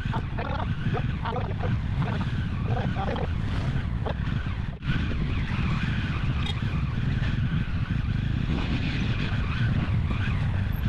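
Motorcycle running along a wet road, filmed from the bike: a steady low engine rumble mixed with wind and tyre noise. It dips out briefly for an instant about five seconds in.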